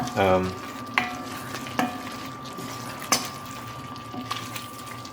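Shrimp frying in oil and tomato paste in a pot while being stirred, with a steady sizzle and a few sharp knocks of the utensil against the pot.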